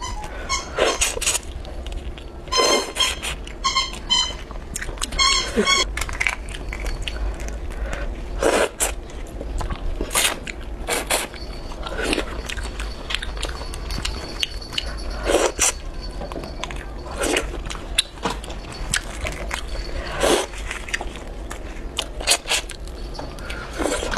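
Close-miked crawfish peeling and eating: boiled crawfish shells cracking and tearing under gloved fingers, wet with sauce. It comes as an irregular series of sharp cracks and clicks, with a dense crackly run a few seconds in.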